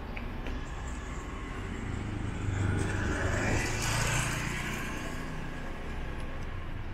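Street traffic: a motor vehicle's engine hum and tyre noise swell as it passes, loudest a few seconds in, then fade back to a steady hum.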